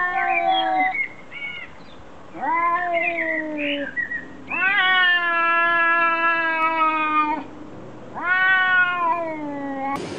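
A cat meowing in four long, drawn-out yowls, each rising at the start and then sagging slightly in pitch; the longest lasts nearly three seconds. Short high squeaks come between the calls.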